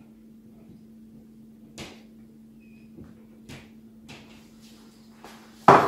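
Quiet kitchen with a steady low hum and a few faint taps, then a single loud thump near the end.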